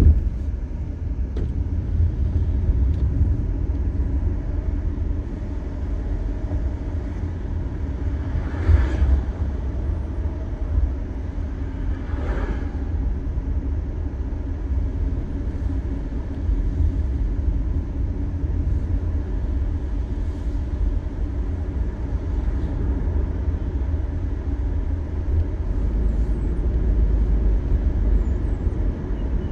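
Road noise inside a moving car on a rain-wet road: a steady low rumble with tyre hiss, and two brief swishes about nine and twelve seconds in.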